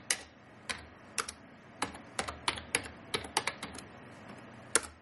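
Keystrokes on a computer keyboard: a string of separate key clicks at an uneven pace, with one louder keystroke near the end.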